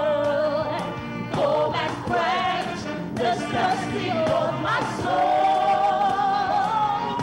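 Male lead vocalist singing a gospel chorus into a microphone over live band accompaniment, holding a long note about five seconds in.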